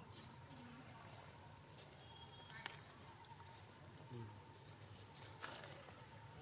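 Near silence: faint outdoor background with a couple of soft clicks.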